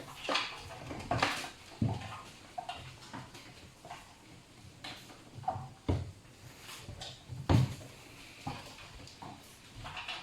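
Baby raccoons clambering about a washing machine: scattered knocks and bumps, the loudest about six and seven and a half seconds in, with a few short squeaks between them.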